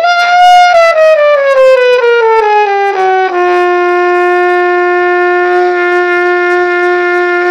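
Trumpet playing a descending chromatic run in quick, even eighth notes from high G down to middle G over about three seconds, then holding middle G as one long steady note. This is the long-note and chromatic exercise.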